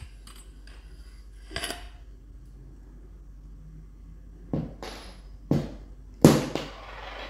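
Metal parts of an RTI Prophet 2 air rifle and its removed barrel being handled on a table, knocking and clinking. One knock comes about a second and a half in, then four sharper knocks in the last three seconds; the loudest, near the end, rings briefly.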